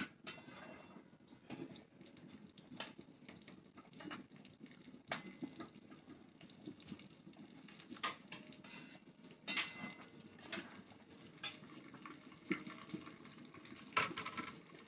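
Cumin, mustard, fenugreek and fennel seeds crackling in hot oil in a small tempering pan, with scattered sharp pops, a few of them louder. The pops show the oil is hot enough for the tadka.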